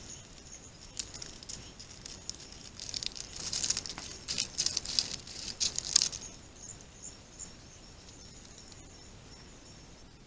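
Faint crackling and rustling clicks come in scattered bursts through the first six seconds, then die away. Under them runs a steady, thin, high-pitched hum.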